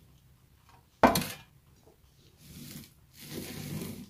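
Kitchen handling noise: one sharp knock about a second in, then two stretches of rubbing and scraping, as of dishes or utensils being handled on a hard surface.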